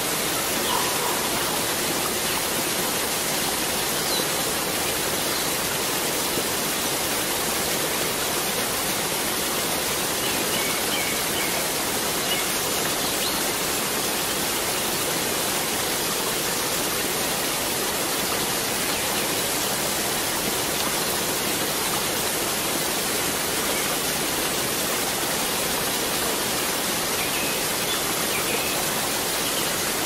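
Waterfall's steady, even rush of falling water, with a few faint bird chirps above it.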